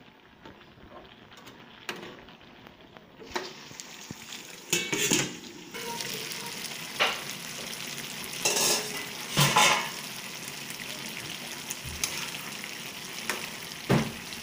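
Pork and vegetables sizzling in a metal wok, with a spatula stirring and scraping against the pan in several short bursts. The sizzle comes in about three seconds in and then holds steady.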